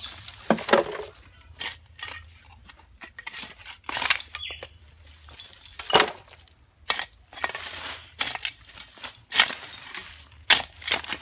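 Irregular sharp clinks, knocks and scrapes of debris being dug out and shifted while clearing ground.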